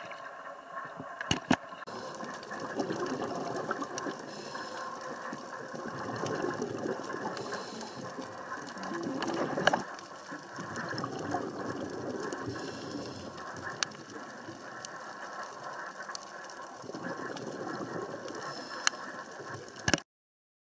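Muffled bubbling and gurgling of scuba divers' exhaled air, heard underwater through a camera housing, swelling and easing every few seconds with the breaths. A few sharp clicks; the sound cuts off suddenly near the end.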